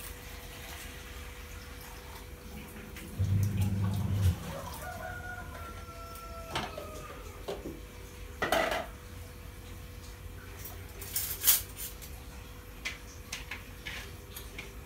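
Dishes and metal kitchenware clinking and clattering as they are handled at a sink, a few sharp clatters with the loudest about eleven seconds in. A rooster crows faintly about five seconds in, and a short low hum sounds for about a second shortly before.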